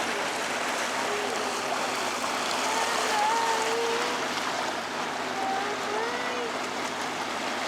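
Steady rushing of water along a canal tour boat under way, with faint voices talking in the background.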